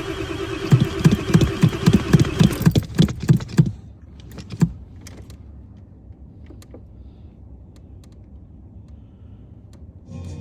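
Hard-starting 7.3-litre diesel being cranked by its starter: a steady starter whine over rhythmic compression pulses, about three or four a second, without the engine catching. The cranking stops near the start, the engine coasts to a stop about a second later, and the rest is quiet with a few faint clicks.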